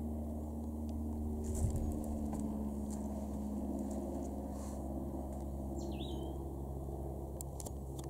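A steady low drone of distant engine noise. About six seconds in, a bird gives one short whistled call that sweeps down and then up. A few faint clicks come between one and three seconds.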